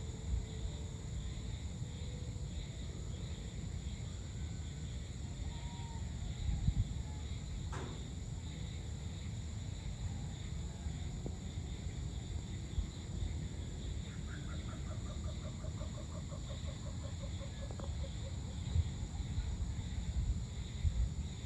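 Dusk outdoor ambience: a steady high drone of insects over a low rumble. A single sharp click comes about eight seconds in, and about fourteen seconds in a long, pulsing animal call that falls slightly in pitch lasts some three seconds.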